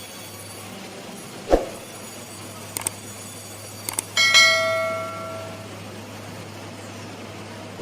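A loud metallic clang that rings like a bell for about a second and a half before fading, preceded by a sharp thud and a couple of light clicks, all over a steady low machine hum.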